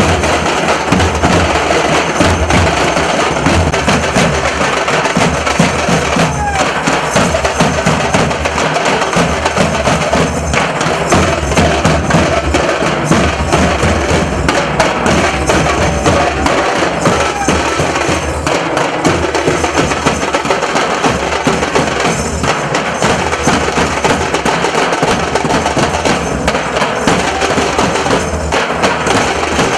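Nasik dhol troupe drumming: deep dhol drums and sharp, cracking stick strokes beating a dense, driving rhythm without a break.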